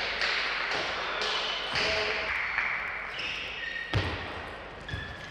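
Table tennis rally: the celluloid ball ticks sharply off the bats and the table, with rubber shoe soles squeaking on the court floor. Two heavier thumps land about four and five seconds in.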